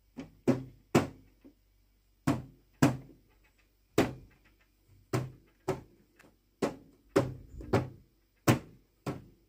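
Repeated hard knocks on the plastic cabinet of a Sony Trinitron CRT TV, about fifteen at an uneven pace of one or two a second, over a faint low hum. The set is being jarred to bring out its intermittent fault from cracked solder joints.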